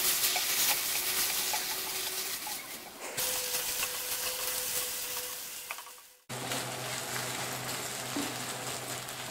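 Chunks of beef sizzling in coconut oil in a non-stick kadai, stirred and scraped with a wooden spatula, with small clicks of the spatula against the pan. The sound breaks off abruptly about six seconds in, then resumes.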